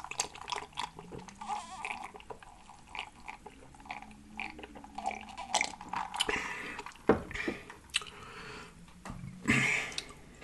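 Close-miked chewing and wet lip smacking, a run of irregular short clicks and smacks.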